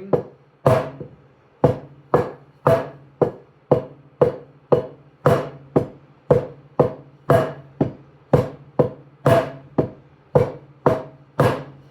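Wooden taiko bachi (sticks) playing a slow, even accent exercise, about two strokes a second, with some strokes accented louder. Each stroke is struck loosely so the stick bounces back and rings briefly.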